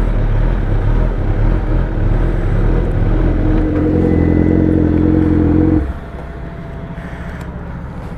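2015 Kawasaki Ninja ZX-10R inline-four sportbike engine idling, shut off about six seconds in. A second, quieter motorcycle engine keeps idling after it.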